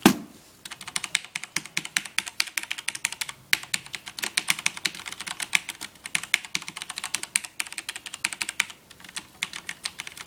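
Fast typing on a Rosewill RK-9000BL mechanical keyboard with linear Cherry MX Black switches. The keys do not click; each stroke is the plastic clack of the key bottoming out. The typing starts about half a second in and stops briefly near the end.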